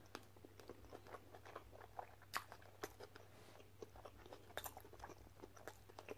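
A person chewing food close to the microphone: faint, irregular soft crunches and mouth clicks, a few sharper ones around two and a half and four and a half seconds in.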